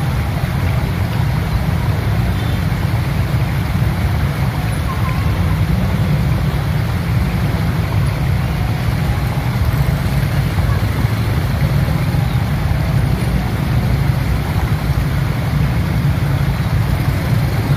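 Many motorcycle engines idling together in a steady low rumble, with wind buffeting the microphone.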